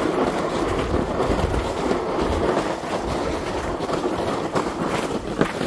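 Plastic sled being pulled up an icy, gravelly track, its runners scraping and rumbling steadily while footsteps crunch on the frozen snow.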